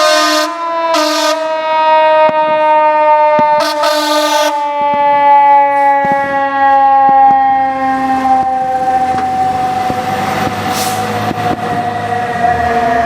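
Pierce fire truck's mechanical siren winding down, its pitch sliding slowly lower. Air horn blasts sound over it in the first few seconds. Later the truck's engine rumbles underneath.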